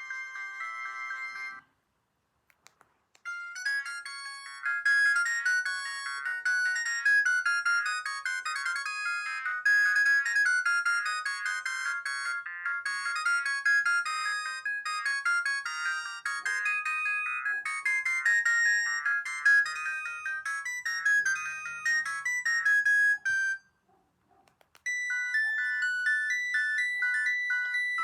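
Vodafone 227 mobile phone playing its built-in ringtones: one tune cuts off near the start, then after a short pause a long, fast, high-pitched electronic melody plays. It stops a few seconds before the end, and another ringtone begins about a second later.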